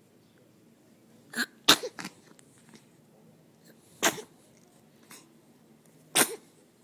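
Three sneezes, each short and sharp. The first and loudest comes about a second and a half in, with a smaller burst just before it and after it; the others follow about two seconds apart.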